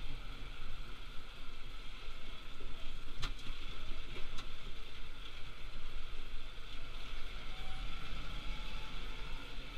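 Tractor engine running steadily, heard from inside the cab while the tractor drives along a rough dirt track. Two sharp knocks come about three and four seconds in, the first louder.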